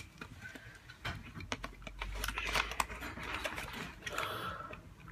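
Scattered sharp plastic clicks and rustling from a toy gun and its cardboard box being handled.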